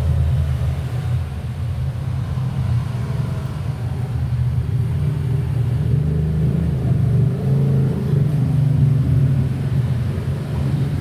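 Steady low rumble, loud and continuous.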